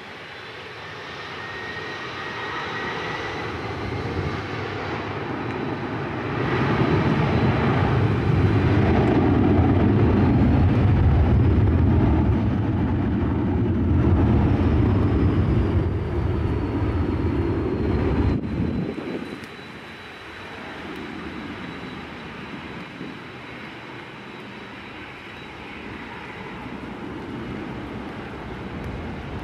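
A Boeing 757's twin jet engines spooling up to takeoff power, a thin whine over a building rumble, then the loud roar of the takeoff roll. The roar drops off suddenly about two-thirds of the way through, leaving a quieter, more distant jet noise.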